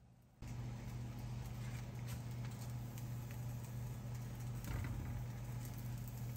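Bread slices toasting in a ceramic frying pan, sizzling faintly, with light taps as a slice is lifted, flipped and set back down, over a steady low hum.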